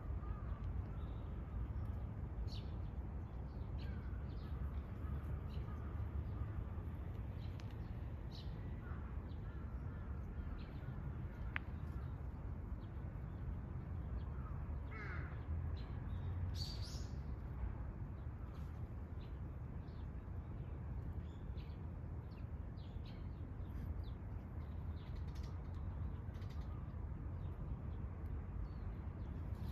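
Crows cawing faintly now and then, with a few other bird chirps, over a steady low rumble.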